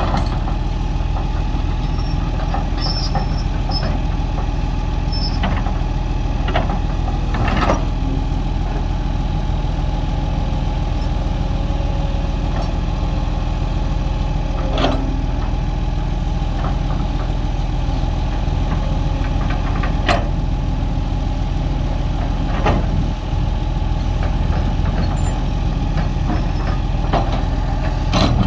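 Heavy diesel machine engine running steadily at an even speed, with an occasional sharp knock every few seconds.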